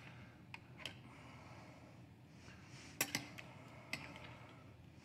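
A few light clicks of a serving spoon against a ceramic bowl as vegetable ragu is spooned in, the sharpest pair about three seconds in.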